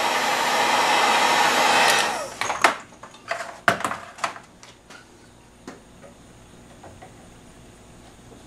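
Electric heat gun blowing steadily on a metal hose barb, switched off about two seconds in. A quick run of sharp clicks and knocks follows as tools are handled, then it goes quiet.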